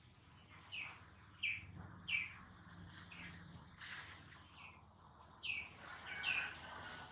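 A series of short, high chirps, each falling in pitch, repeated irregularly about eight times, with a brief noisy burst about four seconds in.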